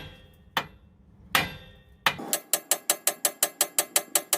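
Two hammer blows on a steel steering spindle, struck to shock a joint loose. They are followed by a quick, even run of metallic clicks, about seven a second.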